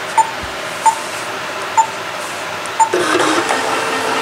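Four short beeps from the touchscreen of a Pfaff Creative 4.5 sewing and embroidery machine as the hoop size is selected, then, about three seconds in, the embroidery unit's motor starts a steady hum as it drives the arm into position for the chosen hoop.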